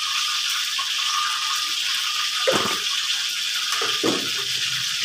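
Steady hissing noise, with two short dull knocks about two and a half and four seconds in.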